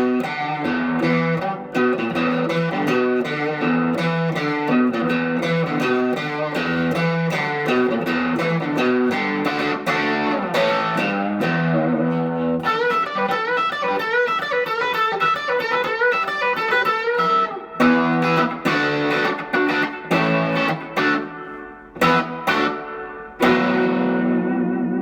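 Reverend Eastsider S electric guitar played through an amp on its Fender Tex-Mex bridge pickup with light overdrive: picked notes and chords in a twangy Telecaster-style passage, with wavering, bent notes in the middle stretch and short breaks near the end.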